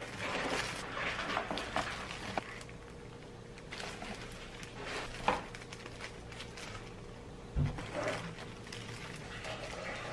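Disposable plastic gloves rustling and crinkling as madeleines are lifted out of a metal madeleine pan and set on a wire cooling rack, with scattered light clicks and knocks against the pan and rack. A dull thump comes about three-quarters of the way through.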